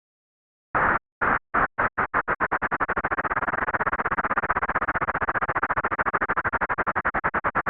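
Pulses of white noise that make audible a slow sine-wave sweep generated by SoX. They start about a second in at roughly two a second, speed up to about ten a second, then slow again near the end.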